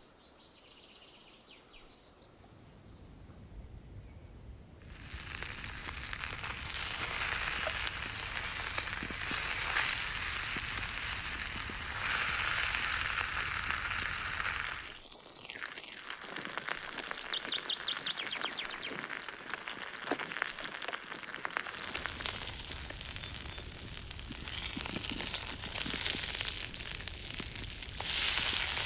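Tomahawk steaks frying in butter in a pan: a steady crackling sizzle. It starts faint, grows louder about five seconds in, drops away briefly around halfway, then picks up again and is loudest near the end.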